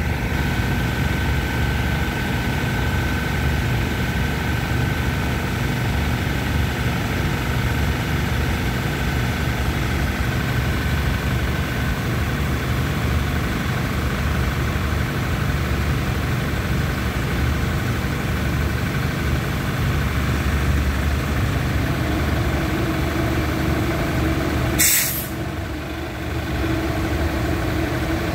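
Diesel railcar train idling while standing at the platform, a steady low engine rumble, with one short sharp hiss of air from the brakes about 25 seconds in.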